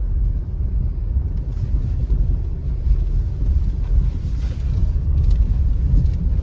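Low, steady road and tyre rumble inside a Honda City's cabin while driving over a rough, potholed road, with a few faint light ticks. No rattle stands out: the driver hears none from the upper part of the car now that foam and tape have been fitted.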